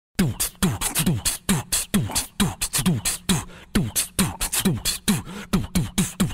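Dance-track drum beat: kick drums falling in pitch about twice a second, with hi-hat and snare hits between them.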